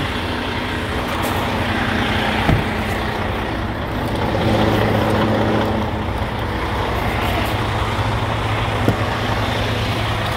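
A 2019 Freightliner Cascadia's diesel engine idling steadily, heard inside the cab, with two short clicks and a slightly louder stretch midway.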